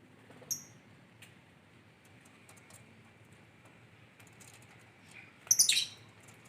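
Lovebird calling: one short high chirp about half a second in, then a louder burst of shrill chirps near the end.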